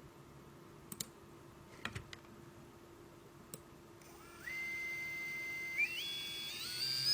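A few faint clicks, then a Readytosky 1804 brushless motor spinning up about halfway through, its high whine climbing in steps as the throttle is raised.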